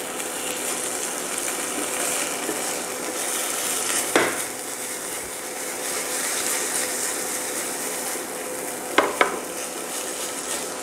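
Vegetables stir-frying in a nonstick frying pan over high heat, a steady sizzle as a silicone spatula turns them. A sharp knock of the spatula on the pan about four seconds in, and two quick ones near the end.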